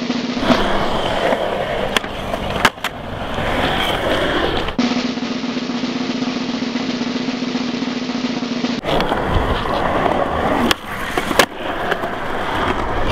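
Skateboard wheels rolling on concrete with sharp clacks from the board being popped and landed, two clacks in each of two stretches of about four seconds. The first stretch starts about half a second in, the second about nine seconds in. Between them comes a steady drum roll.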